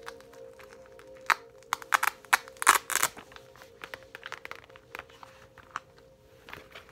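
Tapping and scratching on assorted small objects: a quick run of sharp taps and short crinkly scrapes, busiest in the first half, then a few scattered taps.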